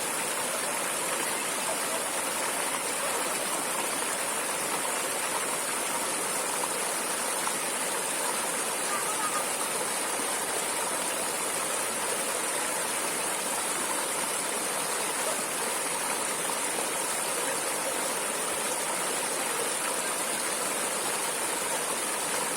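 Stream water flowing steadily, a continuous rushing without breaks.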